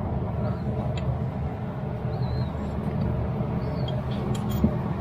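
A few light taps of a brass punch nudging a rear main seal into place, about a second in and near the end, over a steady low hum.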